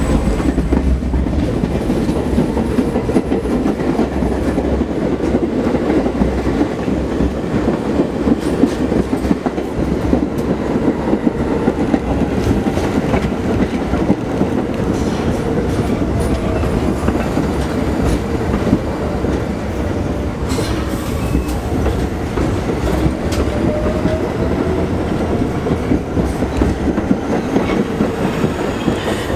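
An R46 New York City subway train running past on elevated track, its steel wheels clattering over the rail joints in a loud, steady rumble. A faint gliding whine runs through it and a few sharp knocks come about two-thirds of the way in.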